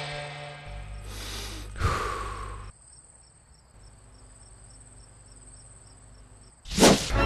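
Crickets chirping in near quiet, about three small high chirps a second. Before it a whoosh falls in pitch, and near the end a loud rush of sound starts suddenly.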